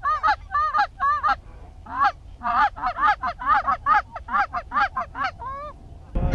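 Geese honking: many short, loud honks and clucks in quick runs, with a brief lull about a second and a half in, then a dense run.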